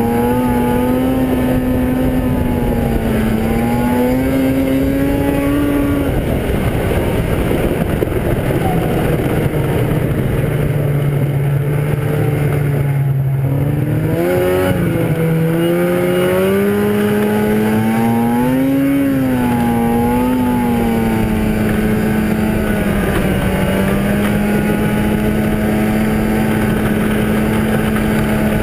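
1997 Arctic Cat ZR 440 snowmobile's two-stroke twin engine running under way as it is ridden. The engine note climbs, then drops lower for several seconds about a quarter of the way in, dips briefly near the middle, revs up and down a few times, and holds steady for the last third.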